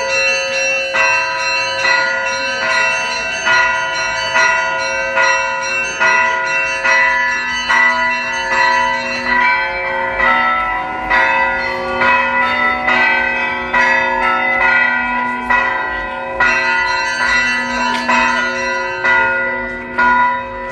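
Church bells ringing, several bells of different pitches struck one after another in a steady, continuous run, each stroke ringing on under the next.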